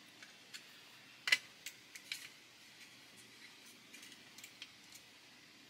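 Faint clicks and taps of metal tweezers and plastic scale-model parts being handled and fitted, with one sharper click just over a second in.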